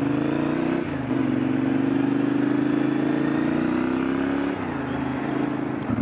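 Triumph Scrambler's parallel-twin engine accelerating through a TEC stainless high-level exhaust with the baffle still in: revs climb, drop briefly about a second in at an upshift, climb again for several seconds, then fall off near the end.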